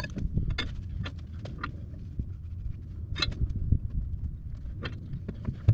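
Scattered metal clicks and knocks of a wrench working the hydraulic hose fittings on a Cat 312 excavator as they are snugged tight, over a low rumble of handling noise.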